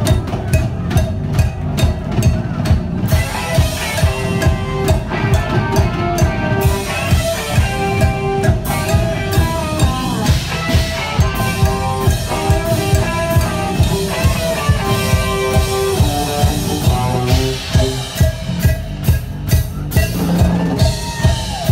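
Live band playing rock music: drum kit with a steady kick-drum beat of about two a second, under bass and guitar.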